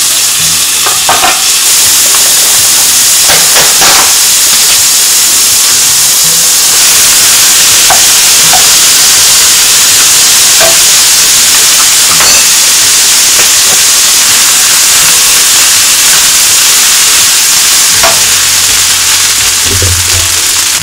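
Food sizzling loudly in a non-stick wok as prawns, tomato and onion are stir-fried, with short scrapes and taps of a wooden spatula against the pan. Cooked rice is tipped in and stirred through, and the sizzle grows louder about a third of the way in.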